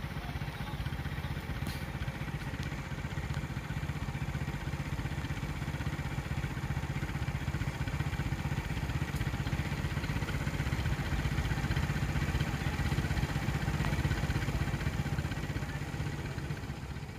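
A vehicle's engine idling steadily, a low even hum that grows a little louder toward the end.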